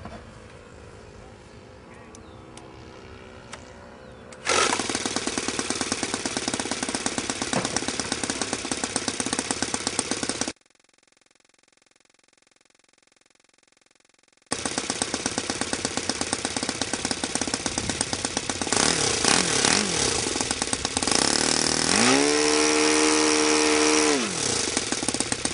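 Saito FA-82a four-stroke glow engine with an APC 14x7 propeller on a test stand, running with fast even firing pulses. It comes in loudly about four seconds in and drops out for a few seconds of near silence. It then idles steadily, runs up in pitch to full throttle near the end and falls back to idle, taking the throttle change cleanly with no hesitation.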